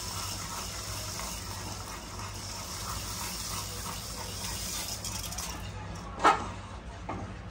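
Semiya simmering in boiling water in a pan on a high gas flame, a steady hiss that thins out a little near the end. A single sharp clink, the loudest sound, comes about six seconds in.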